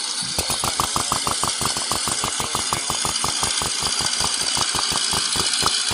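John Deere two-cylinder tractor engine sound: an even popping of about nine beats a second that picks up again after a brief break right at the start, over a steady hiss.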